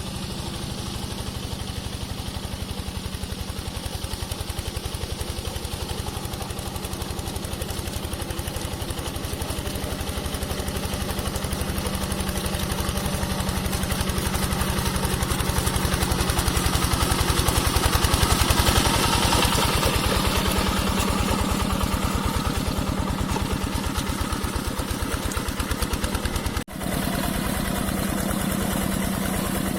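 Yanmar TF 85 single-cylinder diesel engine of a hand tractor chugging steadily while harrowing a rice paddy. It grows louder toward the middle and eases off again, with a brief dropout near the end.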